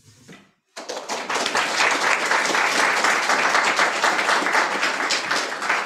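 Audience applause in a room full of seated people, breaking out about a second in and going on as steady clapping from many hands.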